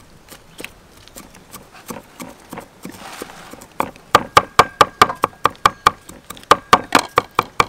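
Cleaver chopping garlic cloves on a thick round wooden chopping block. A few light, scattered taps come first; about four seconds in, a fast, even run of sharp knocks starts, about four a second.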